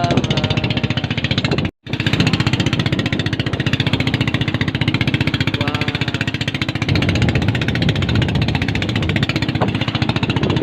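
Motorboat engine running steadily with a fast, even pulsing, cut off briefly about two seconds in.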